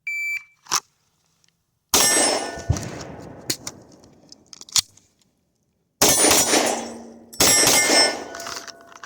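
A shot timer's start beep, then five 9mm shots from a Glock 19 pistol drawn from the pocket, the first about two seconds after the beep. The three loudest shots each leave a long ring behind them.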